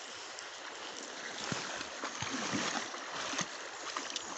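Shallow river water running, with a few light splashes as a malamute wades in.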